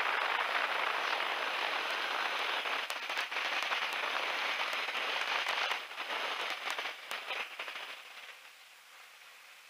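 Crackling, hissing wind noise on an open headset microphone, heard through the aircraft intercom, with scattered clicks; it fades away over the last few seconds.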